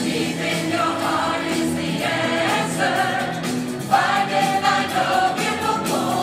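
A group of people singing together like a choir, holding sustained notes.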